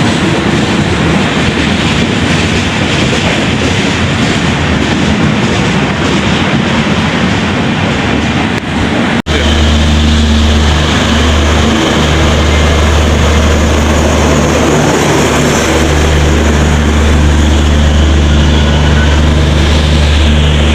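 Loud rumbling noise of a train running past, then after an abrupt cut about nine seconds in, a deep steady engine hum like a locomotive running close by.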